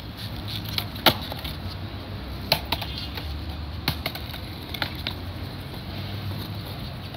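Skateboard wheels rolling over smooth paving with a low steady rumble, broken by about five sharp wooden clacks of decks striking the ground as tricks are popped and landed.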